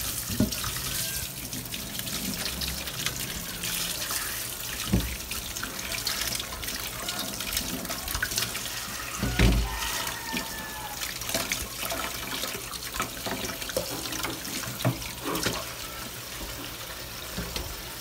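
Kitchen tap running steadily into a stainless steel sink and bowl while vegetables are rinsed and rubbed by hand under the stream. A few dull knocks come through, the loudest about halfway through.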